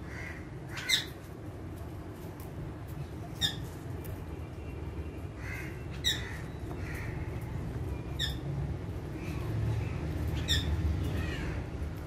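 Rose-ringed and Alexandrine parakeets calling: five sharp, shrill squawks, each sliding downward in pitch, come every two to two and a half seconds, with softer chattering calls in between.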